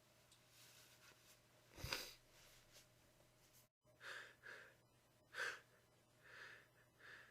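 A person's short, quiet breaths and gasps between sneezes, drawn in a few at a time in the lead-up to the next sneeze. There is a brief sharp sound about two seconds in.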